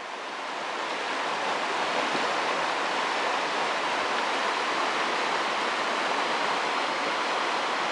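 Steady rush of shallow, rocky river rapids, white water running over boulders. It swells over the first second or so, then holds even.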